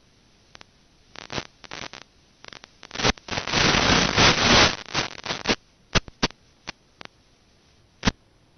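Static from an analog FPV video receiver's audio channel with no microphone feeding it: scattered sharp crackles, a dense burst of hiss lasting about two seconds midway, then a few more clicks. The static comes as the video link breaks up.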